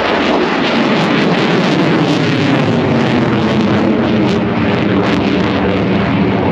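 Lockheed Martin F-22 Raptor flying overhead, its twin Pratt & Whitney F119 afterburning turbofans making a loud, steady jet noise with a crackle in it.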